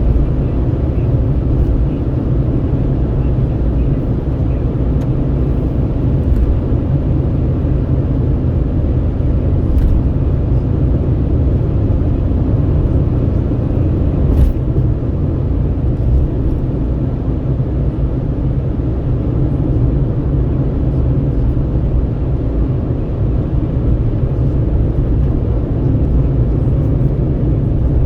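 Steady low road rumble of a vehicle driving at highway speed: tyre, engine and wind noise, heard from inside the vehicle, with a couple of faint clicks midway.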